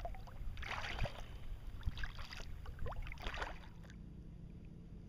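Kayak paddle blades dipping and splashing in the water, about one stroke a second, over a low rumble. The strokes stop about four seconds in.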